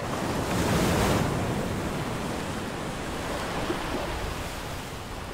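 Ocean waves washing, a steady rushing that swells about a second in and then slowly eases off.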